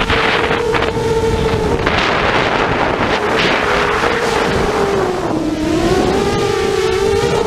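Electric motors of an FPV drone whining steadily, picked up by the onboard GoPro, with gusts of wind rushing over the microphone. The pitch dips about five and a half seconds in and climbs back as the throttle changes.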